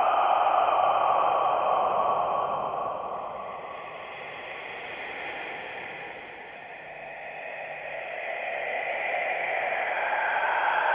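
Scary whispered breathing: a long, hissing breath that fades out over the first several seconds, then another breath swelling in near the end.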